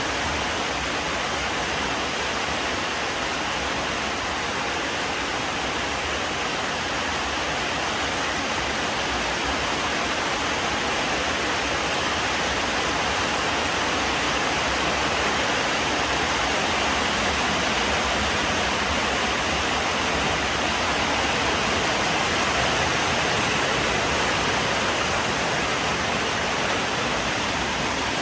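Heavy rain falling steadily, an even unbroken hiss with no thunder.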